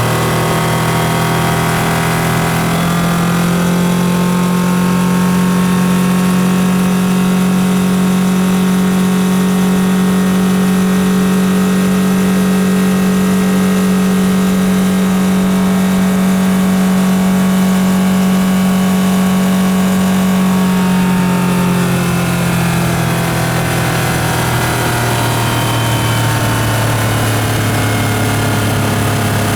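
Yamaha F150 four-stroke, four-cylinder outboard engine running: it revs up from a low speed over the first few seconds, holds a steady higher speed for about eighteen seconds, then eases back down toward idle.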